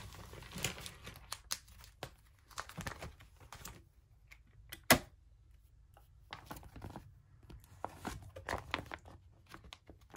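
Clear plastic photocard binder sleeves crinkling and rustling as they are handled and a pocket page is turned, with scattered small clicks and one sharper click about five seconds in.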